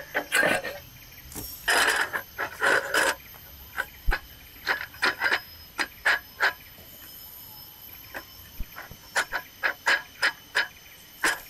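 Steady high-pitched drone of forest insects, with many short, irregular knocks and rustles of things being handled close by.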